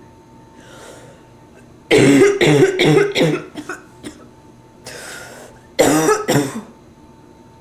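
A woman's bronchitis cough: a fit of about four coughs starting about two seconds in, a noisy breath in, then two more coughs near the end.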